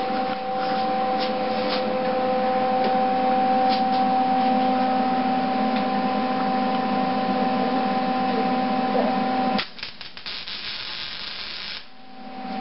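MIG welder running: a steady electrical hum under the crackle of the welding arc. It stops suddenly about nine and a half seconds in, leaving a few scattered clicks, and the hum comes back near the end.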